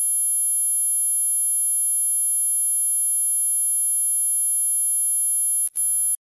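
A loud, steady electronic tone made of several pitches at once, dominated by a piercing very high whine with a weaker low hum beneath it. Near the end it drops out for an instant with a click, comes back, then cuts off suddenly.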